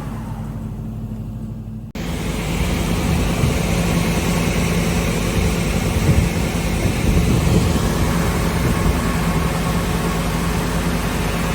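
SCM Sandya 3S wide-belt sander with two sanding units running, a steady machine hum under a hiss. About two seconds in the sound breaks off and returns at once, louder and fuller, and then holds steady.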